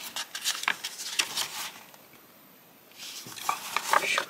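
Paper rustling and crackling as old cookbook booklets are handled and their pages turned. It comes in two spells of quick, crisp crinkles, with a quiet pause of about a second in the middle.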